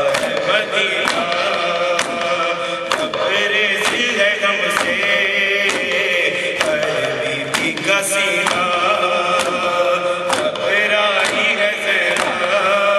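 A man's voice chanting an Urdu noha lament through a microphone and PA. Under it come even, sharp slaps about every three-quarters of a second: the congregation's matam, hands striking the chest in time with the recitation.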